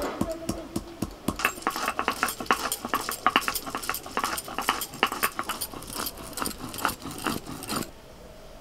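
Stone roller pounding and crushing fresh ginger on a stone grinding slab (shil-nora): a fast run of hard stone-on-stone knocks, sparse at first and denser from about a second in, stopping suddenly shortly before the end.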